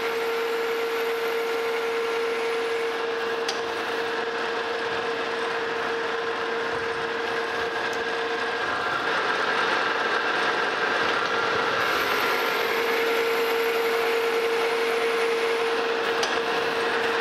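Metal lathe running under power while a single-point boring-bar tool cuts internal 10-TPI threads: a threading pass and a spring pass. It makes a steady mechanical whine over a rushing noise, and the whine changes for a few seconds just past the middle.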